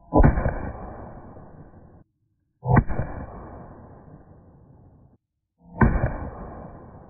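Three pistol shots from a Tisas 1911 A1 Service, about three seconds apart, each ringing out and fading over about two seconds.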